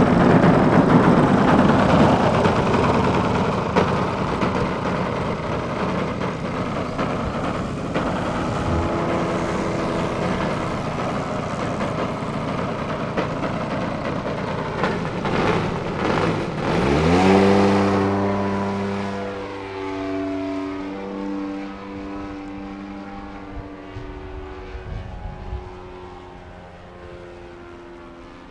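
Radio-controlled aerobatic model plane's engine and propeller. A loud rushing noise comes first, then the engine revs up sharply for takeoff about seventeen seconds in. After that it drones, its pitch shifting, and grows fainter as the plane climbs away.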